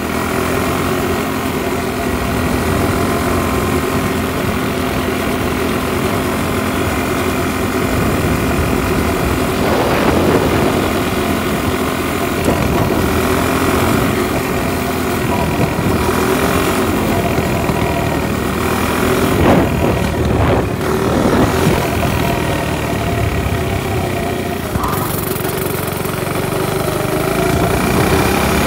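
Small motor vehicle engine running steadily as it is ridden along, with a few brief louder surges about halfway through.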